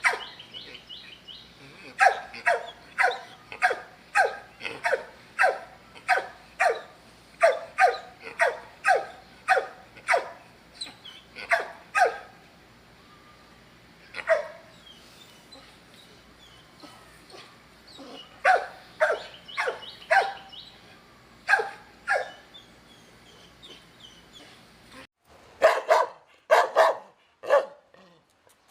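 Dog barking in runs of sharp barks, about two a second, broken by pauses of a few seconds. Near the end the background changes and a louder set of barks follows, from a different recording.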